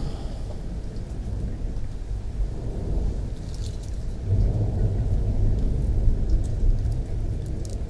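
A low, steady rumble, swelling a little about halfway through, with faint crackles from about three and a half seconds in.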